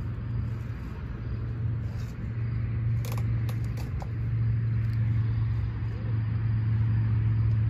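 Steady low rumble, a little louder after about four seconds, with a few light knocks and clicks around three seconds in.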